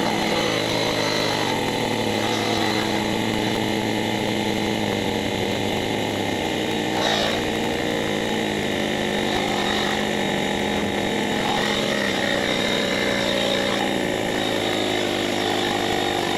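GOOLOO cordless portable tire inflator's small electric air compressor running steadily under load as it pumps up a nearly flat pickup truck tire. The hum is even and not that loud.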